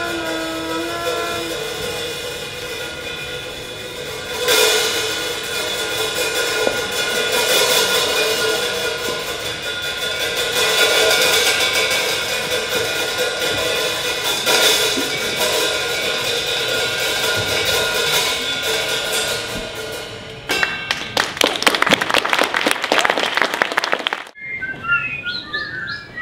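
Live street-theatre music: a short trumpet line gives way to long held tones, with occasional crashing percussion strokes. About 20 seconds in, fast dense rattling percussion takes over and stops abruptly, and curling whistle glides follow near the end.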